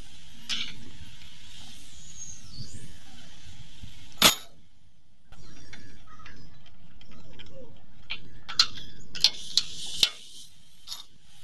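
Sharp metallic clicks and clinks from a spanner and battery cable connectors being handled at an excavator's battery box, over a steady hiss. The loudest click comes about four seconds in, and a quick run of clicks follows near the end.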